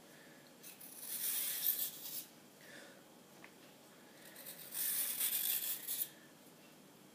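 Vegetable peeler scraping a strip of skin off a cucumber, twice, each stroke lasting about a second and a half.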